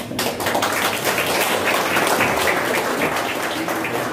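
People applauding, a dense spell of hand-clapping.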